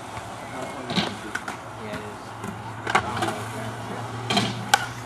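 Skateboard rolling on concrete with several sharp clacks of the board, the loudest near the end.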